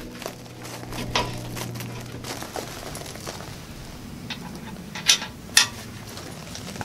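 Sharp metal clinks and knocks while the backhoe bucket is refitted on its pins, over a low steady hum that stops about a third of the way in. The loudest knocks come as a pair near the end.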